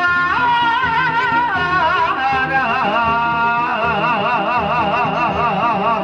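Live music of a kuda kepang troupe: one high melody line with a strong, regular vibrato, held notes and short sliding runs, over a steady lower accompaniment.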